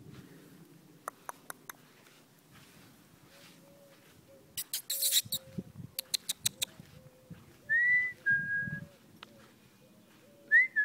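An Afghan hound snuffling with its nose in the grass, with a snort and a quick run of crunching clicks about halfway through. Two short whistled chirps follow, the first near the end of the middle stretch and the second near the end.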